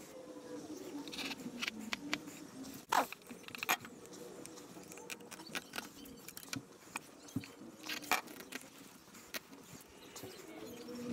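Hand tools and tape handled on a fibreglass surfboard deck: light clicks, taps and scrapes of a steel ruler, utility knife and masking tape, with sharper clicks about three seconds in and again about eight seconds in.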